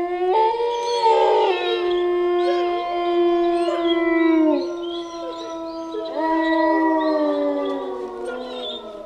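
Several wolves howling together: long, held howls overlapping one another, some gliding up in pitch, with a new howl rising in about six seconds in, and the chorus fading near the end.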